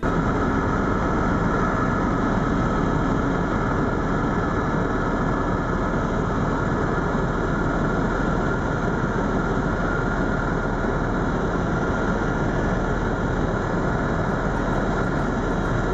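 Eurocopter EC130 EcoStar tour helicopter in flight, heard from inside the cabin: a loud, steady drone of turbine and rotors.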